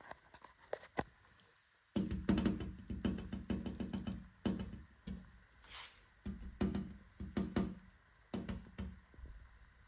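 Background music with a steady beat and low pitched bass notes, coming in about two seconds in after a few soft clicks.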